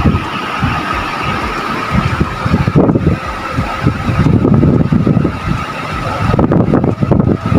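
A vehicle driving along a rough off-road dirt track: uneven low rumbling from the engine and the bumpy ride, with a steady thin whine underneath.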